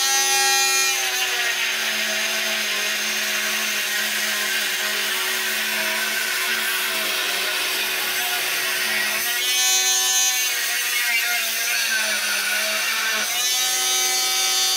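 Handheld rotary power tool running at high speed: a clean, high whine while it spins free at the start, around ten seconds in and over the last second or so, and a rougher, noisier sound while it bears on the work in between.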